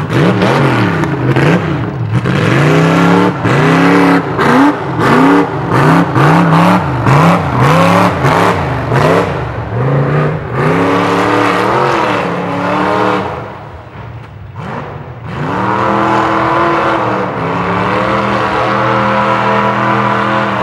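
A Ford Bronco mud truck's engine revving hard. For the first half the revs rise and fall over and over, about once a second, as the throttle is pumped. About three quarters in the revs dip briefly, then the engine holds at high revs as it pushes through the mud pit.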